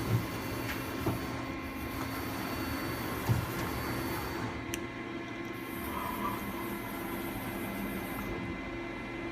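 Mazak QT25L CNC lathe running: a steady mechanical hum with several constant tones, broken by a few short clunks in the first few seconds.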